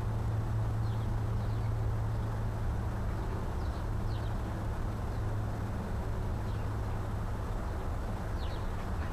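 Steady low outdoor hum, with faint, short high-pitched bird chirps several times over it.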